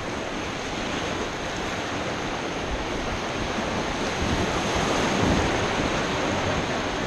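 Whitewater rapids rushing steadily around a raft, growing a little louder about two thirds of the way through.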